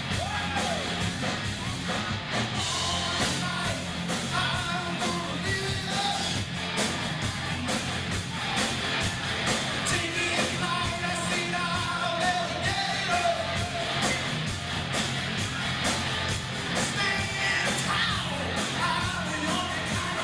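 Live rock band playing loud, with a singer over electric guitars and a steady drum beat.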